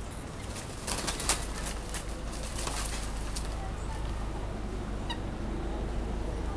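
Helmeted guineafowl scuffling in a bush: wings flapping and leaves and branches rustling in short bursts, about a second in and again near three seconds, over a steady low rumble. A brief faint peep about five seconds in.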